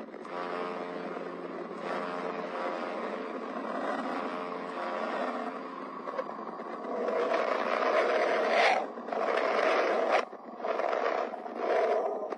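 A 'planet sound': spacecraft radio and plasma-wave data turned into audio. It is a steady, rushing hiss with a held cluster of low tones through it, then swells louder and drops out briefly three times near the end.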